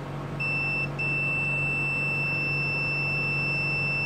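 Multimeter continuity buzzer beeping with a steady high tone, briefly at first and then held for several seconds, showing an unbroken connection between the probes.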